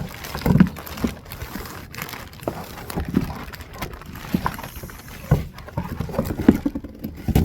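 Irregular knocks and thumps of a cardboard box and its packaging being handled and opened, loudest about half a second in and again near the end.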